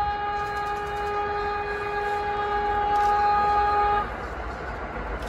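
New York City subway R32 train sounding its horn in one long steady blast of about four seconds as it approaches to run through the station, then the rumble of the oncoming train on the rails.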